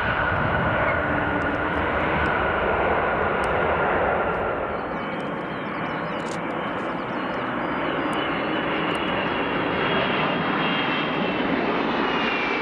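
Jet engines of a Boeing 777-200ER running as it rolls out on the runway after touchdown. About four and a half seconds in, this gives way to the Pratt & Whitney engines of an Airbus A330-200 on final approach, their whine climbing higher and then falling in pitch near the end as it passes over the threshold.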